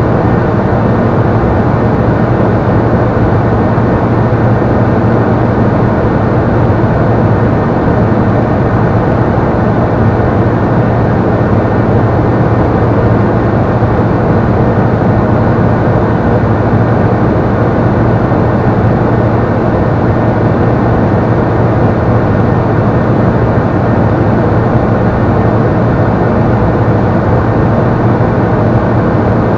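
Steady drone of a Robin CDI light aircraft's diesel engine and propeller in cruise flight, heard loud inside the cockpit, with a strong low hum that holds level throughout.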